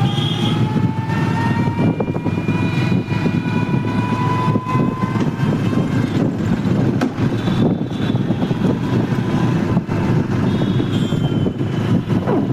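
Motor vehicle engine running on the move, with a steady low drone and road and wind noise. A fainter tone rises slowly in pitch over the first few seconds and fades out.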